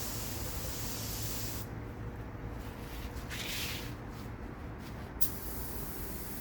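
High-pitched spraying hiss that stops about two seconds in, with a short spurt in the middle and a sharp click before the hiss starts again near the end. A low steady hum runs underneath.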